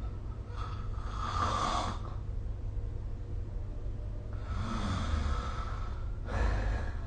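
A sleeping person snoring lightly, heard as noisy breaths: one about half a second in lasting about a second and a half, then two more close together from about four and a half seconds in. A steady low hum runs underneath.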